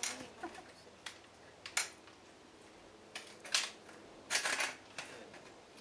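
Hinged aluminium multi-position folding ladder being folded and reset: its joints and rails give a scatter of sharp metallic clicks and clanks, loudest in a quick cluster a little past halfway.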